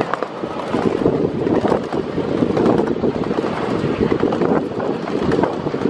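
Ride-on miniature railway cars running along the track with a steady low rattle, and wind on the microphone.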